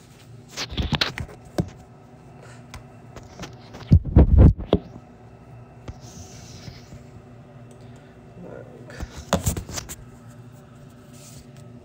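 Handling noise of a phone camera being set up by hand: fingers rubbing and bumping the phone in a few clusters, the loudest about four seconds in and another near the end. A faint steady hum lies underneath.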